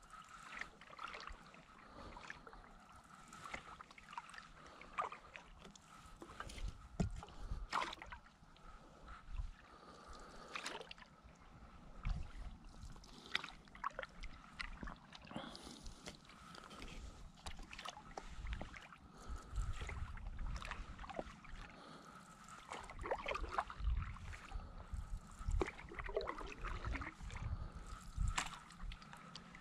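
Stand-up paddleboard paddle strokes: the blade dipping and pulling through the water in quick, irregular splashes and drips, with low rumbles in between.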